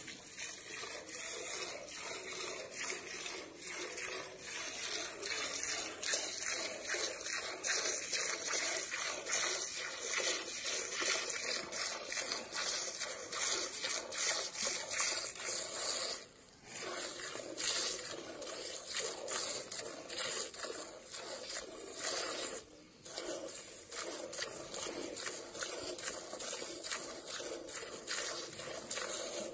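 Hand milking of a cow: streams of milk squirting from the teats into a metal pail partly full of milk, a quick rhythmic hiss with each squeeze. The squirting stops briefly about halfway through and again a few seconds later.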